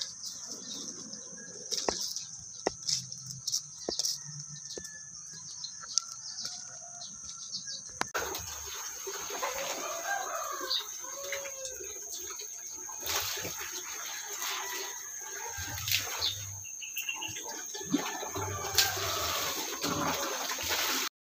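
Clothes being washed by hand in plastic basins: water sloshing and splashing as the wet cloth is lifted and wrung, with a tap running into a bucket. Chickens cluck in the background, and a steady high-pitched tone runs underneath. The first several seconds are quieter, with only scattered clicks before the washing sounds start.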